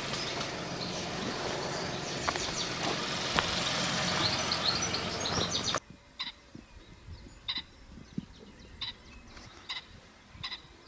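Dense birdsong over a steady rushing noise, which cuts off suddenly about six seconds in. A quieter stretch follows, with single short bird calls about once a second.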